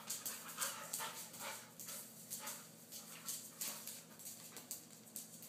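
A dog spinning in tight circles after its tail, making an uneven run of short, noisy sounds, about three a second, that thin out toward the end.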